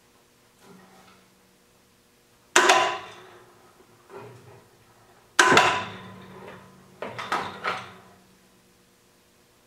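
Metal clanks from a lathe tool turret being worked into its seat on the machine: two loud clanks about three seconds apart, then a quick run of smaller knocks near the end, each ringing briefly.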